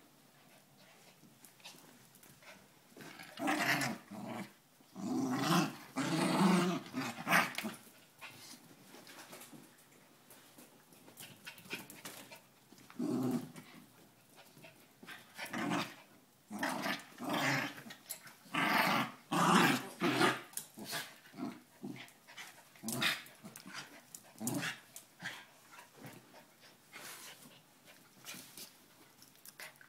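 Two West Highland white terriers play-fighting, growling in short rough bouts of a second or two with quiet spells between.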